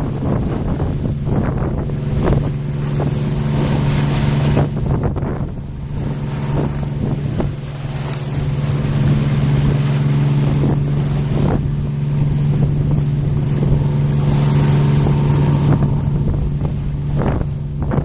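Steady hum of a boat engine out on the river, under wind gusting on the microphone and choppy river waves washing against a stone embankment.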